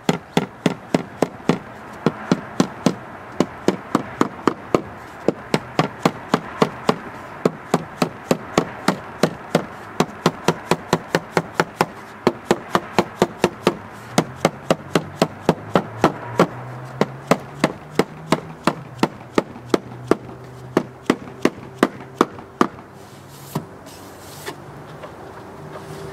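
Rubber mallet tapping the thin aluminum drip-cap sheet over a 1961 Airstream Bambi's door, a steady run of light strikes about three to four a second, flattening spots where the metal buckled out.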